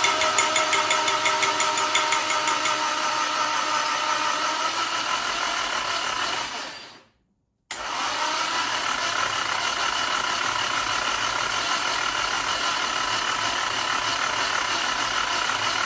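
Nissan SR20 four-cylinder engine cranking on its starter motor with the rocker cover off, with a loud valvetrain rattle: the hydraulic lifters have bled down and oil pressure has not yet built, which the owner says is what the noise means. It stops after about six seconds, then cranks again after a short gap.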